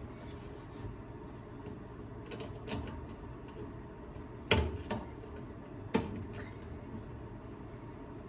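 Handwork with a screwdriver and metal screws at the stove's power-cord terminal block: a few scattered sharp clicks and knocks, the loudest about four and a half seconds in and another near six seconds.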